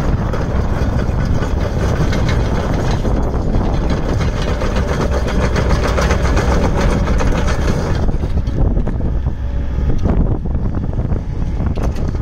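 Kato HD514MR-7 hydraulic excavator's diesel engine running steadily while the boom and arm are moved. A higher hiss over the engine's rumble drops away about eight seconds in.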